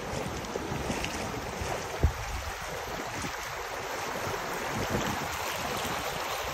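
Shallow creek flowing over rocks, with wind buffeting the microphone in a few low thumps, the loudest about two seconds in.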